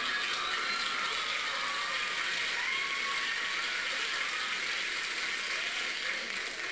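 Steady mechanical whirring and clicking sound effect of the Urkel-bot robot's workings.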